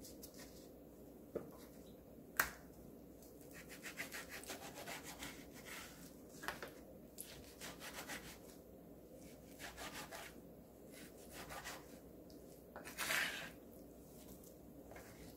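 Chef's knife cutting raw pork neck on a plastic cutting board: faint, irregular clusters of short slicing strokes and taps of the blade on the board, with a louder burst near the end.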